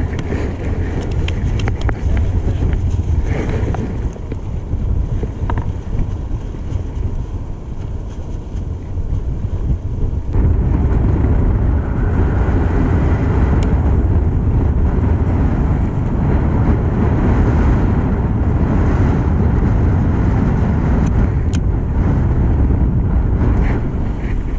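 Wind buffeting the microphone: a steady low rumble that gets louder about ten seconds in.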